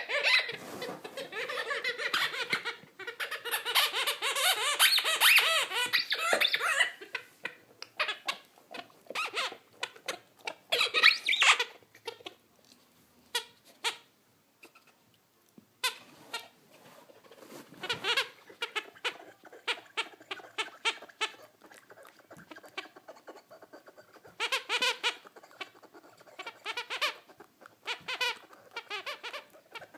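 Rubber squeaky ball squeaking rapidly over and over as a pet chews it: a dense run of squeaks for the first several seconds, then shorter bursts with pauses between.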